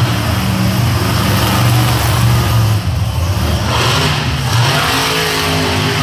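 Monster truck engine running loud and revving, its pitch climbing about two-thirds of the way through as the truck accelerates across the dirt.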